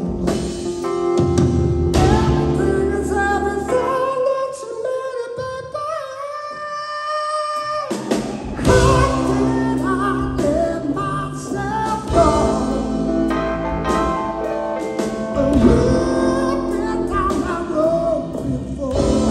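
Live rock band, a power trio of electric guitar, bass and drums, playing behind a lead vocal. About four seconds in the bass and drums fall away under a long held sung note, and the full band comes back in about eight seconds in.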